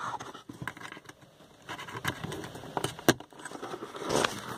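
Rain pattering on the car's windscreen and roof, heard from inside the car as irregular light ticks. Light clicks and scrapes of hands handling plastic parts are mixed in.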